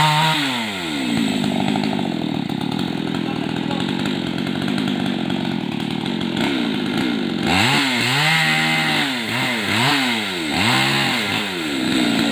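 Chainsaw felling a jabon tree: its engine revs up and down, then runs steadily under load for about six seconds, then revs up and down several times in a row.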